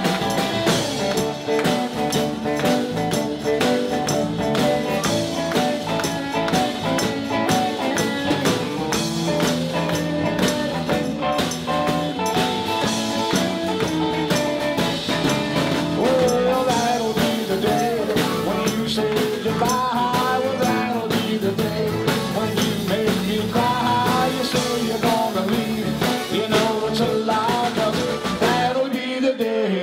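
Live rock and roll band playing, with electric guitars and a drum kit, and a male voice singing over it. The bass and drums break off briefly near the end.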